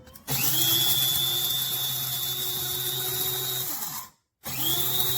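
Kaffe electric blade coffee grinder running on coffee beans: the motor whine climbs quickly in pitch and holds steady for about three and a half seconds, then stops. After a brief pause it runs again for about a second.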